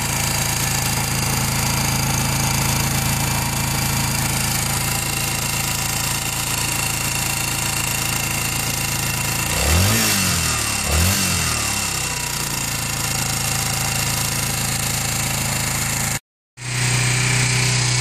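Yamaha SR250's air-cooled single-cylinder four-stroke engine idling steadily, freshly tuned and sounding a lot better. About ten seconds in the throttle is blipped twice in quick succession, each rev rising and dropping straight back to idle.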